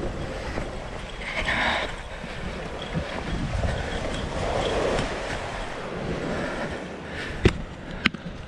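Wind buffeting the microphone over small waves washing onto the sand beach, with two sharp clicks near the end.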